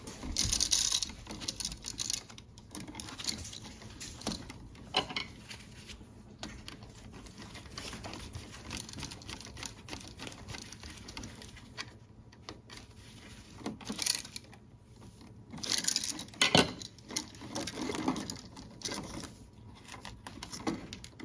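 Irregular clicks, taps and scrapes of close-up hand work on a three-way light switch: wires handled and terminal screws turned with a screwdriver. Louder clusters of clicking come at the start and again about two-thirds of the way through.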